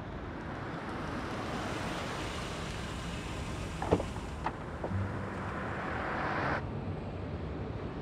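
Road traffic: cars driving past on a city street, a steady tyre-and-engine rush. One pass swells louder and cuts off abruptly about six and a half seconds in. There is a single sharp click about four seconds in.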